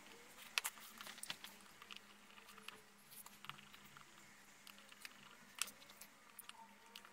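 Faint, irregular small clicks and taps from handling a smartphone's parts and small repair tools during disassembly, with a few sharper clicks standing out.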